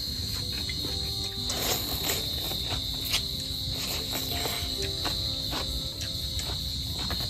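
Crickets chirring in a steady high-pitched chorus, with scattered small clicks of eating and handling food over it.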